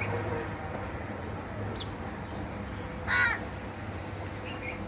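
A crow caws once, short and harsh, about three seconds in, over a steady low background hum.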